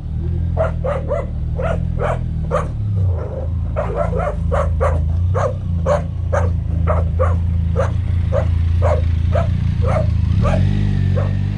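A dog barks over and over, about two to three barks a second, above the steady running of a Benelli motorcycle's engine.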